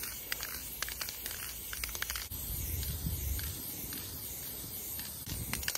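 Aerosol spray-paint can hissing steadily as paint is sprayed onto a wall, with a few faint clicks.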